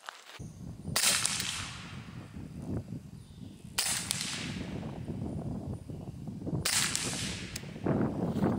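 Three suppressed shots from a .22 LR Ruger Mark IV pistol fitted with a SilencerCo Chimera suppressor, firing subsonic rounds, about three seconds apart. Each is a sharp report followed by a fading echo.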